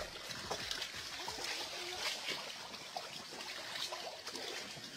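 Shallow water splashing and trickling as a child's arms and a crowd of thrashing catfish stir it, a low irregular sloshing.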